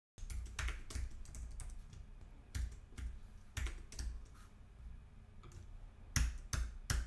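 Typing on a computer keyboard: irregular key clicks, some in quick runs and some single, with a louder cluster of keystrokes near the end, over a low steady hum.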